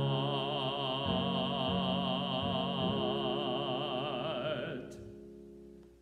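A man sings one long held note with vibrato into a microphone, the closing note of a hymn. Low, sustained instrumental chords change underneath him. The note ends about five seconds in and the sound fades away.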